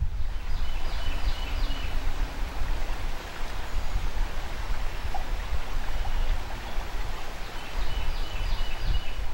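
Steady rush of flowing river water, with two brief clusters of faint high chirps, one near the start and one near the end.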